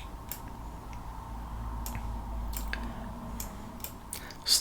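Scattered clicks from a computer keyboard and mouse, about seven in all, over a low steady hum.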